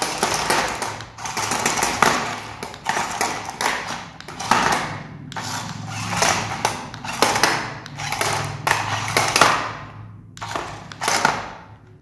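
Small battery-powered RC stunt car driven and flipping over on a tiled floor: its gear motors whir in repeated spurts as the controls are worked, with plastic knocks and thumps as the body and wheels hit the tile.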